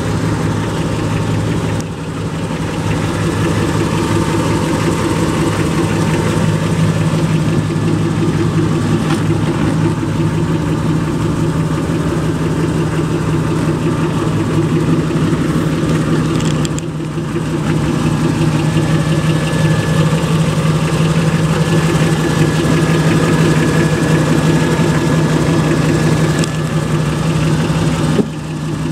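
Chevrolet 283 small-block V8 idling steadily with an even, low drone.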